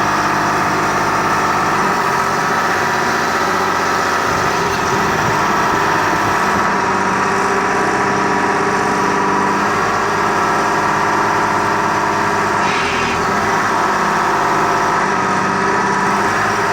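Texoma 900 drill rig running steadily under engine power, its tone shifting slightly about two seconds in and again past the middle.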